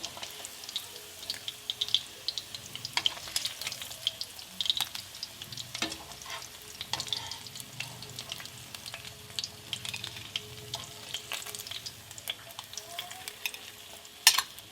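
Hot oil crackling and spitting in a frying pan as pieces of turmeric-marinated fish shallow-fry, with a sharp knock near the end.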